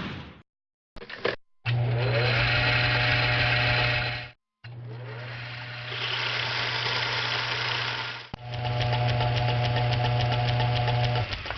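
Sound effects of an electric machine starting up: a motor spins up with rising whines, then runs with a steady low hum and a buzzing whir. It cuts off and starts again twice, with short silences about one and a half and four seconds in.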